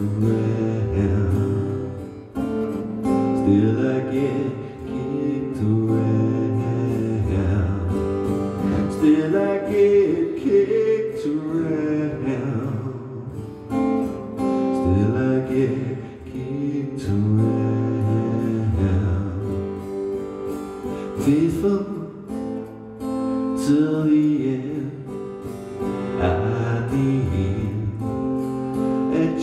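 A man singing while strumming an acoustic guitar: a live solo acoustic song.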